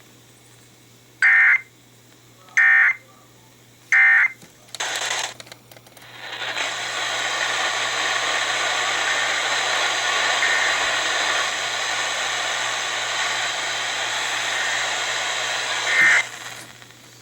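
Three short digital data bursts about a second and a half apart: the SAME end-of-message code from a NOAA Weather Radio broadcast closing a severe thunderstorm warning. After a brief burst of noise comes about ten seconds of steady radio static hiss.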